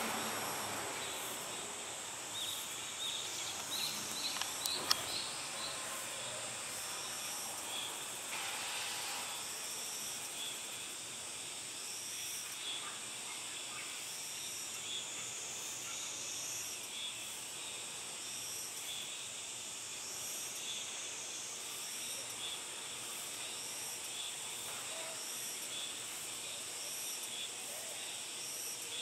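Outdoor insect chorus: a continuous high buzzing with short chirps repeating every second or so. A vehicle's noise fades away in the first couple of seconds, and a few brief clicks and chirps come about four to five seconds in.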